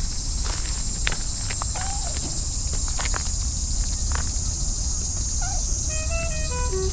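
A steady, high insect chorus, with scattered light crunching steps and rustles on the gravel and grass. About six seconds in, a simple stepping melody starts.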